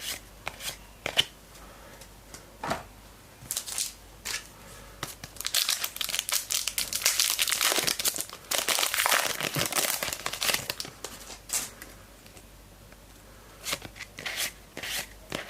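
Trading card pack wrapper crinkling and tearing open, with a dense stretch of crinkling in the middle and scattered short rustles before and after.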